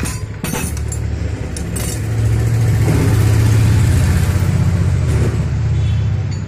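A motor or engine running with a steady low hum, growing louder about two seconds in and easing off near the end, with a few short clicks in the first two seconds.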